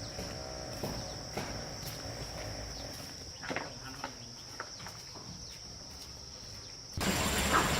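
Insects shrilling steadily on one high note, with scattered light knocks and clicks. About seven seconds in, it cuts suddenly to louder rushing water.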